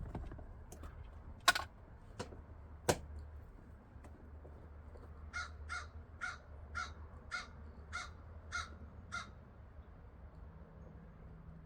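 Two sharp knocks, then a bird calling eight times in a row, about two calls a second.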